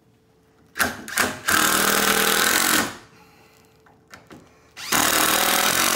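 Cordless impact driver driving screws into a 2x4 brace: two short blips about a second in, then a run of a second and a half, then another run of about a second near the end.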